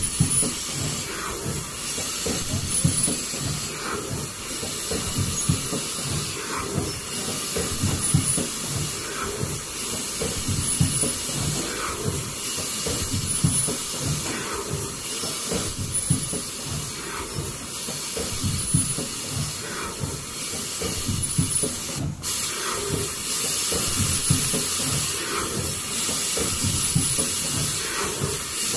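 Automatic KN95 mask production line running: a steady hiss and mechanical rumble, with a short high-pitched tone and a faint knock repeating about every two seconds as the machine cycles.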